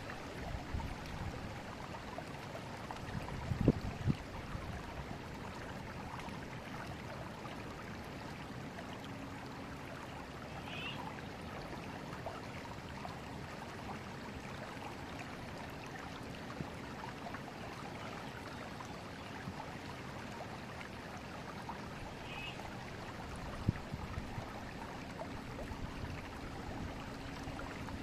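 Forest river flowing steadily, a continuous rush and gurgle of water. A low thump sounds about four seconds in and again near the end, and two faint brief high chirps come in between.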